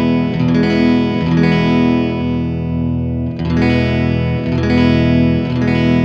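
Electric guitar chords ringing out with a long reverb tail from a Strymon Flint tremolo and reverb pedal, with a fresh strum about halfway through.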